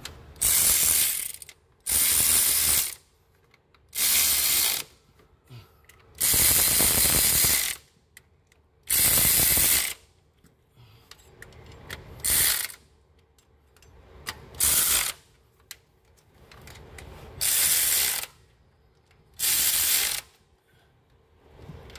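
Power ratchet running bolts into the cylinder head of a Dodge RAM 1500's 4.7 V8 after a lifter job. It goes in about nine separate bursts of a second or less with pauses between, and the bursts get shorter toward the end as the bolts run down.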